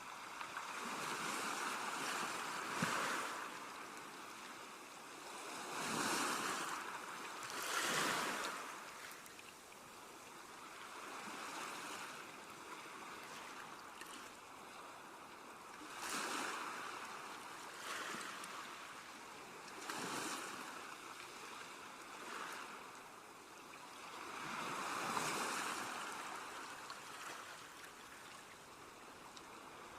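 Sea waves breaking and washing on a shore, one surge after another every few seconds over a steady hiss of surf.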